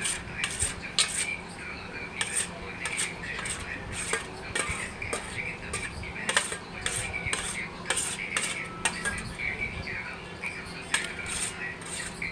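Steel spoon scraping and clinking against an empty stainless steel plate in repeated, irregular strokes, gathering up the last bits of food.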